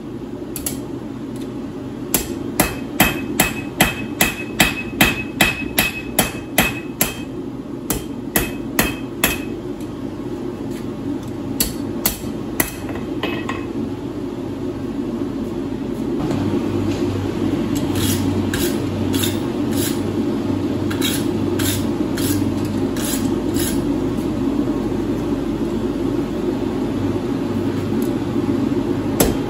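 Hand hammer striking a red-hot steel bar on an anvil, about two blows a second, the anvil ringing with each strike. The blows pause for a few seconds, come back more lightly, and a hard run starts again near the end, over a steady low roar.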